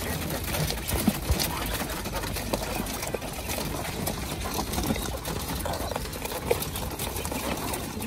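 Caged quail and chickens: a busy patter of many small clicks and taps, with a few short, soft bird calls.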